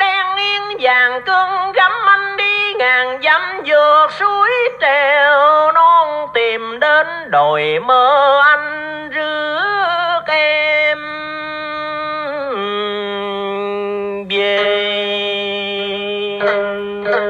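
A tân cổ (Vietnamese modern-traditional song) cassette playing on a BASF-branded Aiwa TPR-201 radio-cassette recorder: a singer's ornamented melody with sliding, wavering pitch, then a long steady held note about two-thirds of the way in.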